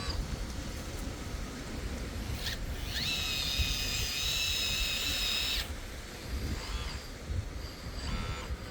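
Hydraulic pump of a Kabolite K961 radio-controlled scale excavator whining as it runs: the pitch rises as it spins up about three seconds in, holds steady for a couple of seconds, then cuts off suddenly. Short chirps come and go around it.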